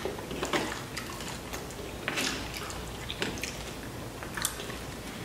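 Fingers picking through loaded nachos on a metal sheet pan: faint scattered clicks and wet sounds as chips and melted cheese are moved about.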